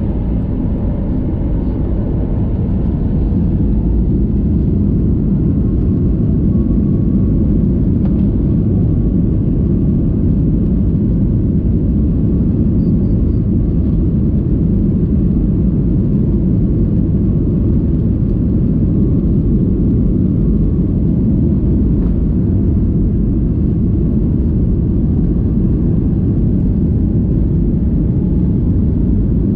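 Cabin noise of a Boeing 737 MAX 8 at takeoff: a loud, steady low rumble of its CFM LEAP-1B engines and rushing air, heard from a window seat. It swells over the first few seconds, then holds steady.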